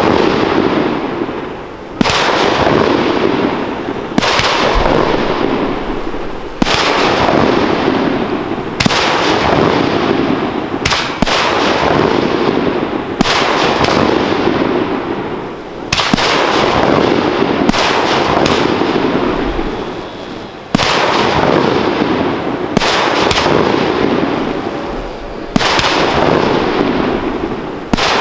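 Aerial firework shells bursting one after another, a sharp bang every two to five seconds, each trailing off over a second or two before the next.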